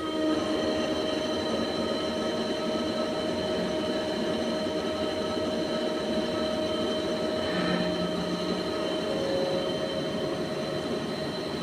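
CNC lathe running through a cutting cycle: a steady mechanical running noise with several steady high whines and a brief shift in tone about eight seconds in.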